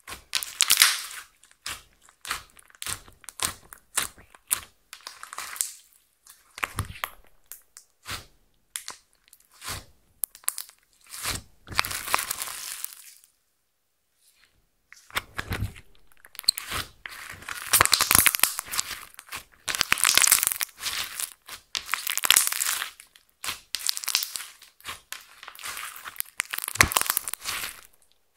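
Hands kneading, squeezing and stretching pink glitter slime (clear slime with eyeshadow and makeup mixed in), making waves of sticky crackling and tiny popping clicks. The sound stops for a moment about halfway while the slime is pulled up and stretched, then comes back denser.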